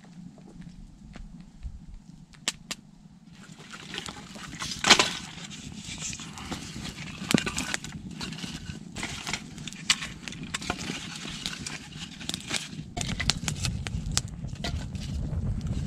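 Wood fire crackling and popping as split logs are stacked onto it, with sharp knocks of wood being set down; the loudest knock comes about five seconds in. The crackling starts about three seconds in and grows as the fire catches.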